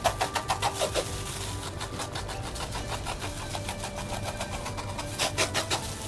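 Knife blade scraping scales off a whole pomfret on a wooden cutting board in quick repeated strokes, several a second, loudest at the start and again near the end.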